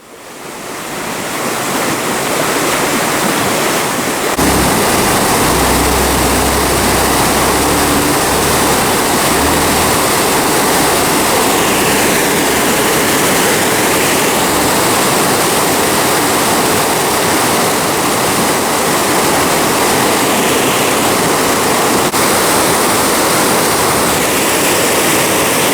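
A waterfall's steady rush of falling water, fading in at the start, with a low rumble underneath from about four to ten seconds in.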